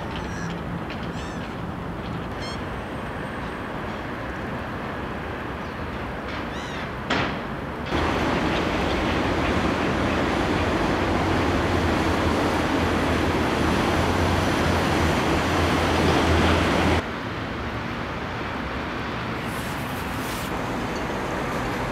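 Steady background rumble of distant traffic, louder for about nine seconds in the middle, with a few faint high bird calls near the start.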